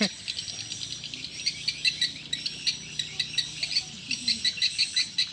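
An insect chirping in a regular rhythm, about three to four short, high chirps a second.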